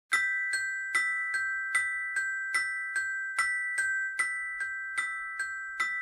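Music intro: a bell-like mallet instrument, like a glockenspiel, strikes evenly about two and a half times a second. Each note rings on into the next.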